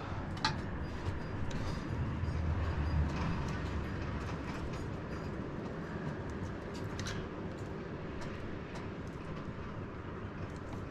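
Steady low rumbling background noise, with a few faint clicks and rustles from hands handling wires and a crimped connector.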